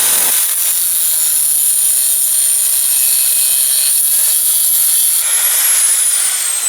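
Electric grinder with a cut-off wheel cutting about an inch off a steel pair of long-handled pliers: a loud, steady high whine. About five seconds in the cut ends and the wheel spins freely, then near the end its pitch starts falling as it winds down after switch-off.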